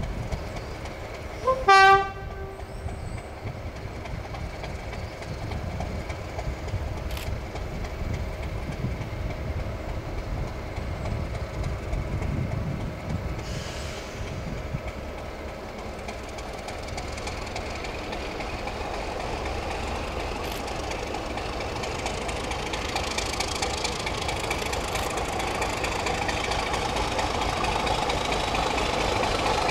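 A train horn sounds one short, loud blast, then a diesel train's low rumble carries on, growing louder toward the end.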